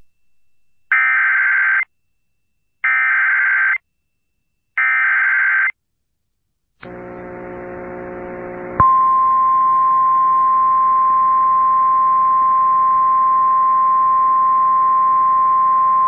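Emergency Alert System broadcast alert over FM radio: three short bursts of screechy digital header data about two seconds apart, then a buzz that swells for about two seconds before a loud, steady, single-pitch attention tone starts about nine seconds in.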